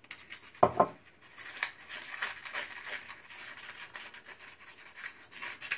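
Silicone pastry brush scraping around inside paper muffin cases in a muffin tin, greasing them with oil: a quick run of scratchy, rustling strokes. Two short knocks come just before the first second and are the loudest sounds.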